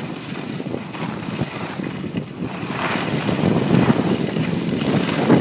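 Wind buffeting a phone's microphone while skiing downhill, an uneven rushing that swells in the middle, mixed with the hiss of skis sliding over packed snow.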